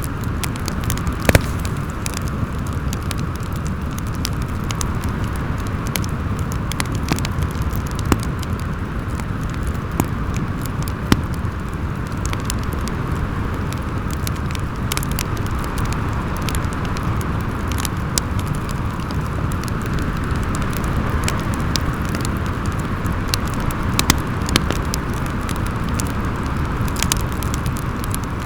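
Wind howling steadily over a low rumble, with the scattered pops and crackles of a fireplace fire and a handful of louder snaps.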